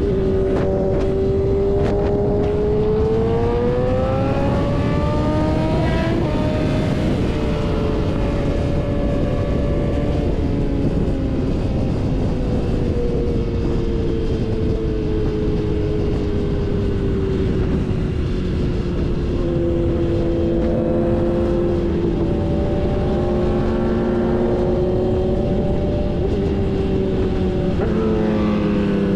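Sport motorcycle engine heard from the rider's seat at highway speed: it revs up over the first six seconds, drops in pitch as it shifts up, then cruises with its note slowly falling, picking up again now and then. A steady rush of wind and road noise runs under it.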